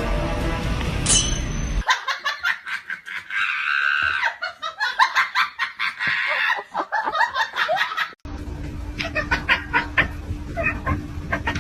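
Music that cuts off about two seconds in, then a person laughing in quick, repeated laughs that go on for several seconds.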